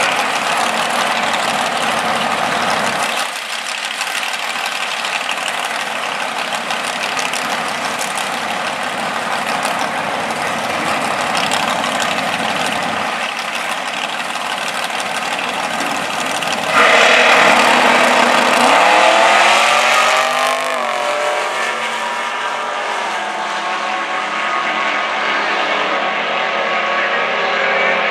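Two Oldsmobile Cutlass drag cars running at the start line, then launching together about two-thirds of the way in, which is the loudest part. The engines rise in pitch under full-throttle acceleration and fade as the cars pull away down the quarter-mile on a 10-second pass.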